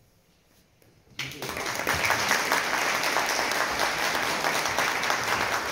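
Audience applauding, breaking out suddenly about a second in after a moment of near silence and carrying on steadily.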